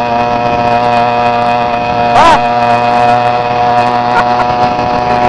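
Motorized bicycle's 80cc two-stroke engine running steadily at high revs while riding, with one brief rise and fall in revs about two seconds in.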